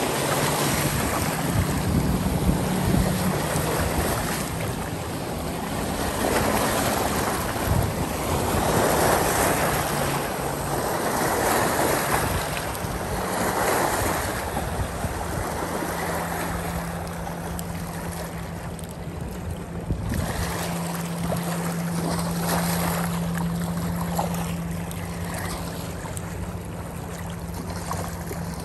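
River water washing and splashing against a rocky bank, in surges every couple of seconds, with wind buffeting the microphone and a steady low hum underneath.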